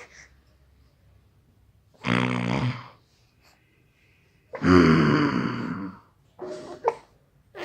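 A person snoring: two loud snores, the second longer, about two and a half seconds apart, followed by a few short, quieter sounds near the end.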